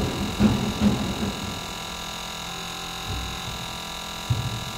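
Steady hum with several steady tones from an AdBlue dosing system running an injector quantity test, with a few dull low knocks in the first second and another near the end. The injector only lets liquid flow out rather than spraying, a faulty injector.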